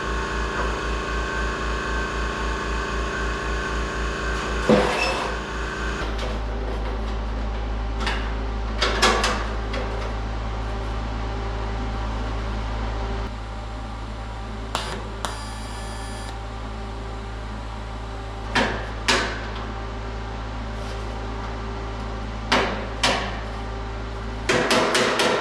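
An air compressor runs with a steady low hum, pulsing for the first few seconds, while sharp hammer taps on steel sheet metal come singly every few seconds. They turn into a quick run of blows near the end as a door-skin flange is worked.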